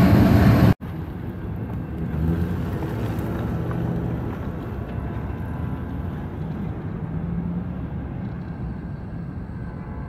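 EMD SD70i locomotive's air horn sounding a chord of several steady tones, cut off abruptly under a second in. Then a steady low rumble with no horn.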